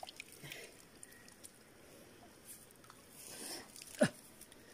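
Light water splashing and sloshing around people wading, with a few small clicks early on, a brief splash about three seconds in and one sharp plop near the end.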